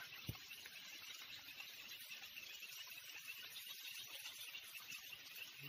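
Faint, steady chirring of insects, with light rain falling on the river.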